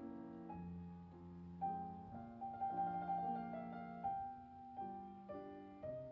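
Background music: soft piano chords.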